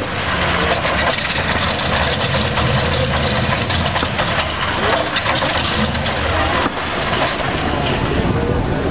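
Pratt & Whitney R-1830 Twin Wasp radial engine from a B-24 Liberator, running steadily on a test stand with its propeller turning.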